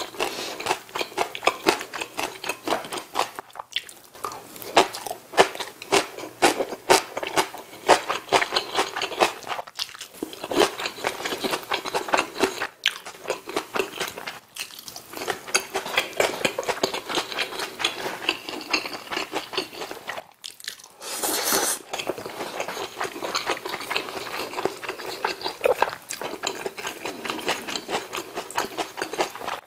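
Close-miked eating: steady chewing and biting of rice, kimchi and beef bulgogi, full of small crunches and wet mouth clicks, with a few short pauses. About two thirds of the way through, a brief noisy hiss lasts about a second.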